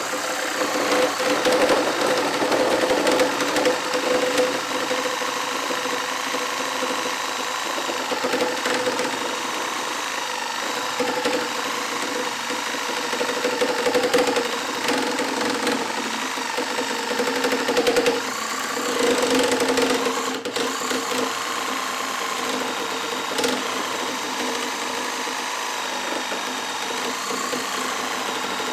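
Milwaukee 2621-20 brushed cordless reciprocating saw with a wood-and-nail blade, cutting through a 6x6 timber post. The motor runs steadily under load, its pitch wavering slightly as the blade bites into the wood.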